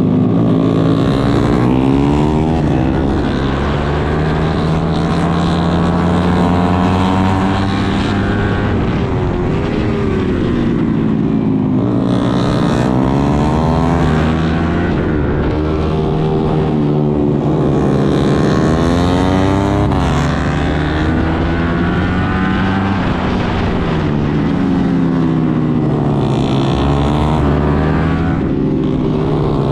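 Suzuki GSX-R150's single-cylinder engine running hard under a rider on track. The pitch climbs under acceleration, then drops sharply at each gear change or braking, again and again.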